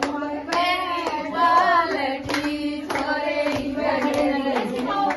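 Women singing a folk song together, their voices holding long wavering notes, with handclaps at intervals of about half a second to a second.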